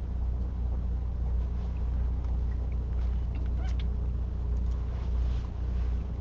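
Steady low electrical or machine hum in a small room, with a few faint light clicks and small sounds around the middle.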